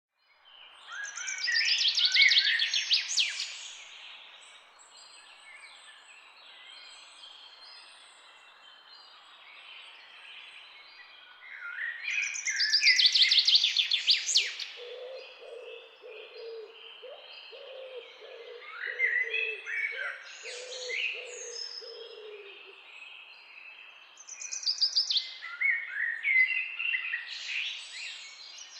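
Wild birds singing and chirping. Loud, rapid trilled song phrases come about every six to ten seconds, with quieter chirps from other birds between them, and a lower series of repeated notes in the middle.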